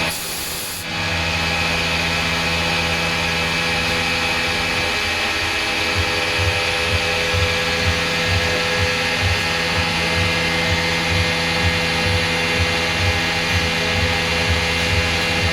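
CNC machine running steadily while cutting a dart barrel, with a whirring hum. It dips briefly in the first second, and from about six seconds in a low pulse comes in roughly twice a second.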